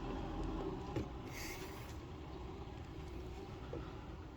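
Faint clicks and a brief scrape of a small screwdriver working a plastic windscreen washer jet loose from its clip in the bonnet, over a low steady background hum.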